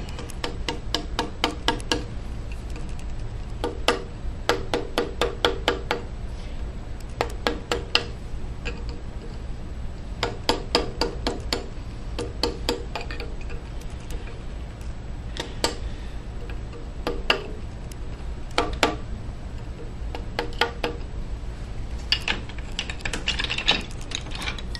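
Light mallet taps driving a carving chisel into walnut, in quick runs of about four taps a second with short pauses between, over a low steady hum.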